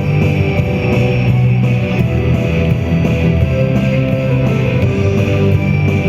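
Loud rock music with guitar over a steady drum beat.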